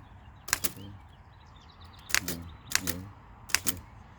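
Elliott-Fisher flatbed book typewriter being typed on: four separate, unevenly spaced key strikes, each a sharp clack with a brief metallic ring.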